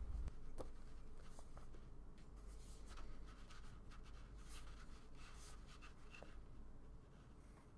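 Muji pen drawing on sketchbook paper: a series of faint, quick scratchy strokes of the pen tip as lines are sketched.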